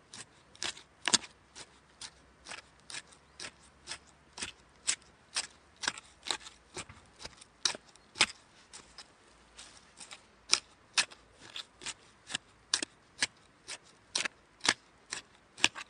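Garden hoe chopping into the ground over and over, each stroke a short, sharp chop, about two a second at an uneven pace, some strokes louder than others.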